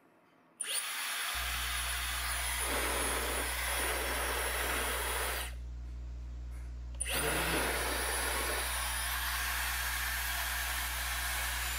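Dyson HD01 Supersonic hair dryer switched on about half a second in, blowing steadily with a thin high-pitched motor whine over the rush of air, on test after its reassembly. Its sound dips briefly in the middle and then comes back, and later the whine steps up in pitch as the settings are changed.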